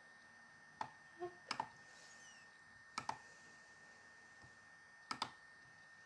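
Computer mouse clicking: a handful of sharp single clicks, two of them in quick pairs, over a faint steady hiss with a thin high tone.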